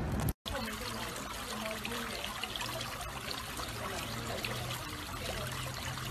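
Water trickling and splashing in a stone garden fountain, a steady, even noise.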